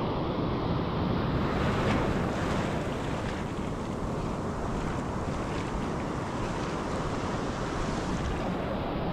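Surf breaking and washing up the beach, with wind rumbling on the microphone. The hiss of the surf swells about a second in and eases near the end.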